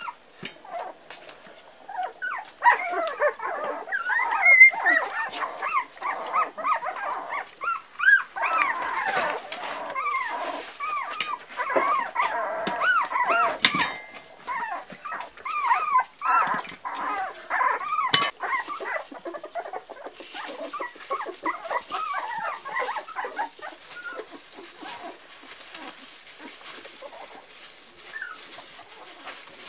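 Four-week-old Parson Russell Terrier puppies whining, many short high-pitched calls overlapping and bending up and down in pitch. They start about two seconds in and thin out over the last few seconds.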